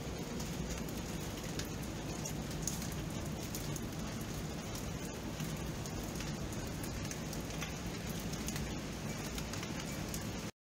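Steady rain falling: an even hiss dotted with many small taps and drips of raindrops hitting a surface. The sound cuts to silence for a split second at the very end.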